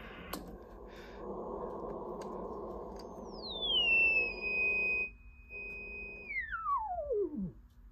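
Collins 75A-4 receiver's crystal calibrator signal heard through the speaker as a beat-note whistle. It slides down from a high pitch, holds steady for a couple of seconds, then glides smoothly down to zero beat near the end as the main tuning dial is turned onto the calibration mark. A steady receiver hiss with a low hum lies under the first half.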